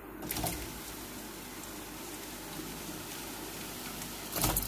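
Sliced bitter gourd dropped into hot oil in a steel karahi, setting off a steady sizzle of deep-frying that starts suddenly just after the slices go in. A second, louder burst of sizzling comes near the end.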